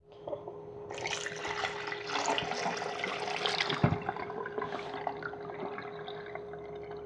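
A homemade clay model toilet flushing: water rushes and gurgles through it, strongest in the first few seconds with a single knock, then easing to a trickle. The flush is a little slow.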